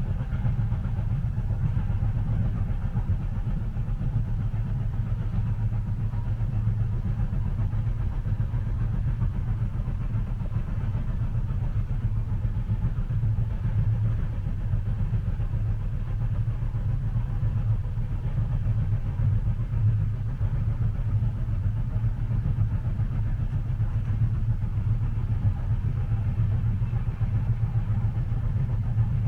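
Steady low rumble of a moving train heard from inside the passenger cabin, even and unbroken, with most of its weight deep in the bass.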